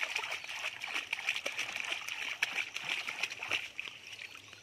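Water splashing and sloshing in a drum as a hand swishes a cast net through it, with many small splashes; the splashing dies down near the end.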